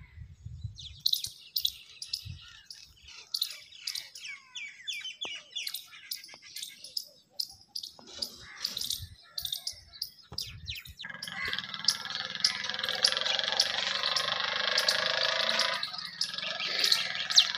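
Small birds chirping and tweeting in many short, high calls. About two-thirds of the way in a louder steady drone with a low hum beneath it sets in over the birdsong, dipping briefly near the end.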